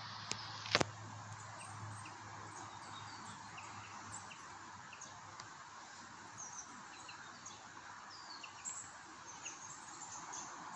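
Woodland background of small birds chirping and calling, many short high chirps scattered over a steady hiss. Two sharp clicks just under a second in stand out above it.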